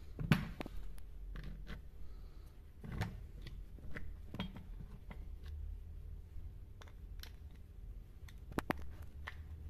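Small clicks and scrapes of a screwdriver and fingers working inside an opened angle grinder's gear housing, with a pair of sharper metal clicks near the end.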